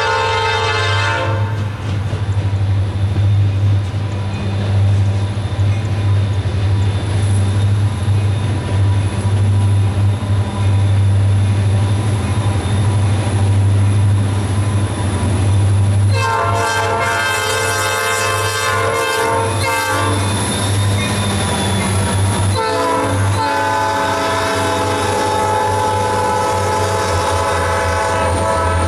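Norfolk Southern SD40-2 diesel locomotives approaching and passing with a freight train, over the steady low drone of their EMD two-stroke diesel engines. The lead locomotive's air horn sounds in long blasts: one ends about a second and a half in, then two more come in the second half, the last running on to the end.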